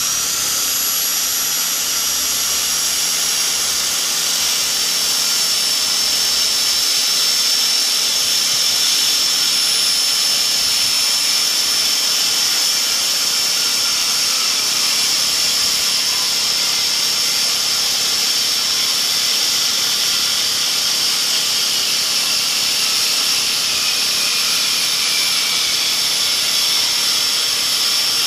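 Electric reciprocating saw's motor running steadily, a loud high-pitched whine that holds the same level throughout.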